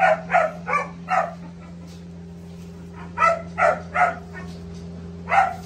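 A dog barking in short quick runs: four barks in the first second or so, three more about three seconds in, and one near the end. A steady low hum runs underneath.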